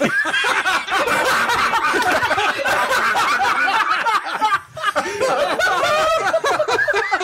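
Several men laughing hard together, voices overlapping, with a brief lull about four and a half seconds in.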